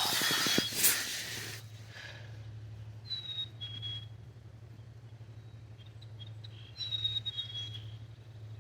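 Loud wind and wave noise that cuts off after about a second and a half. It is followed by a low steady hum and a bird's clear two-note whistle, a higher note then a slightly lower one, sung twice.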